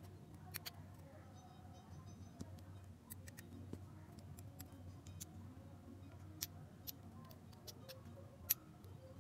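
Small, scattered metal clicks and ticks as a miniature DC motor is taken apart by hand: a small tool prying at its end cap, the armature drawn out of and pushed back into the steel can. The sharpest click comes near the end.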